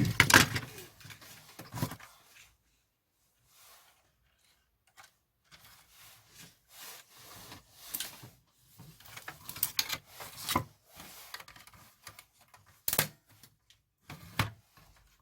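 Clicks, scrapes and rubbing of plastic and metal parts as the FM radio tuner section of an old cassette tape recorder is worked loose and broken out by hand, with a few sharper cracks near the end.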